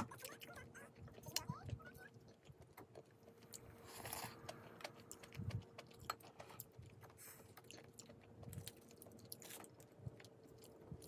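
Faint eating sounds: quiet chewing and small clicks of wooden chopsticks and a wooden spoon against plastic takeout containers, over a faint steady hum.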